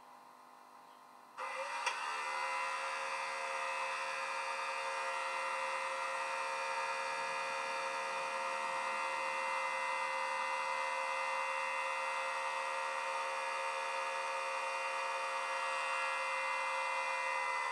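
Sound-fitted Hornby Class 92 model (LokSound 5 decoder, Legomanbiffo sound file) playing the electric locomotive's standing equipment sounds through its small speaker. After a near-silent second or so, the equipment switches on abruptly with a click and settles into a steady hum and whine of several tones over a hiss.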